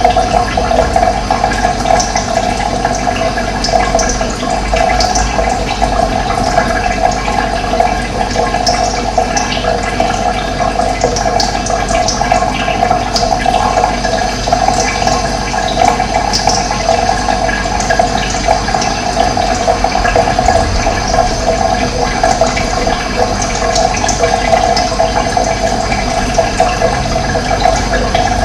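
Running water flowing steadily, with short high bird chirps scattered over it.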